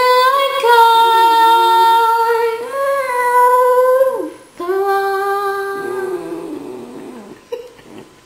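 Small dog howling: one long, steady howl lasting about four seconds, then a second, lower howl that slides down and fades out.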